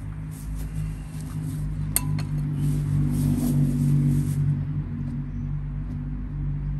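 Steady low mechanical hum, with one sharp clink about two seconds in and patches of soft rustling hiss.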